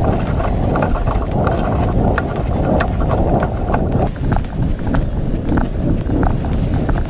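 Hurried footsteps of a player on the move, with gear and rifle rattling, many sharp clicks and a heavy low rumble on the microphone.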